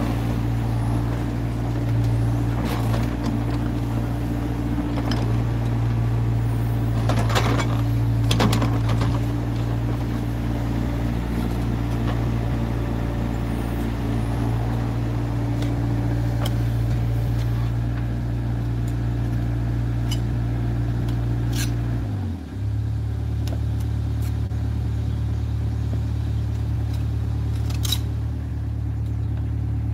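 Hyundai HW60 wheeled excavator's diesel engine running steadily as it works the bucket over loose sand, with a few short knocks and scrapes. About two-thirds of the way through, the engine note shifts abruptly.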